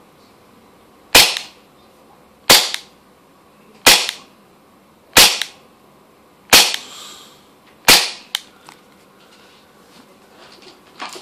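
Air gun firing six shots through a chronograph, sharp cracks evenly spaced about 1.3 seconds apart, each with a short ring, followed by a couple of faint clicks.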